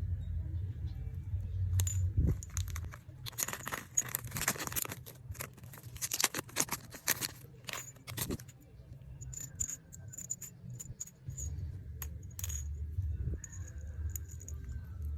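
Small plastic packages and nail-art items being handled: dense crinkling and clicking for several seconds, then scattered light clicks and rattles of small hard pieces.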